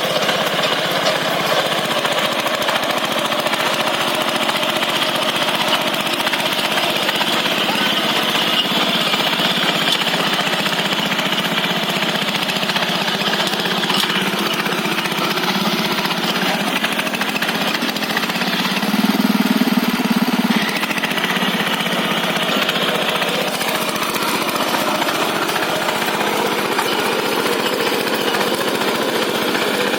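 Engine of a ploughing machine running steadily with a fast, even pulsing. It swells louder for a couple of seconds about two-thirds of the way through.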